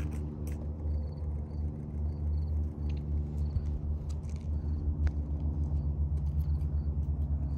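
A large engine idling steadily: a low, pitched drone that takes on a quick, even pulsing in its second half.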